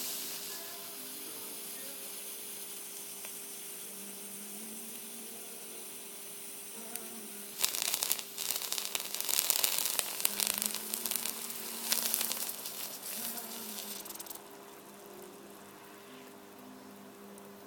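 Water sizzling and crackling against a heating element wire that is boiling it. About halfway through the crackling grows louder and denser for several seconds, then drops back to a quieter steady hiss.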